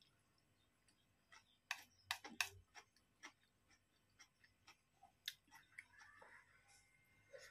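Metal spoon clinking and scraping against a bowl while eating: quiet, scattered sharp ticks, the loudest a quick cluster about two seconds in and another a little past five seconds, with soft eating sounds between.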